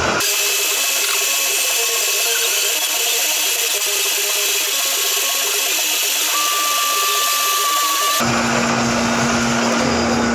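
A metal-cutting machine tool works metal with a steady, high-pitched cutting noise. A thin whistling tone joins about six seconds in. About eight seconds in the sound cuts abruptly to a different machine noise with a steady low hum.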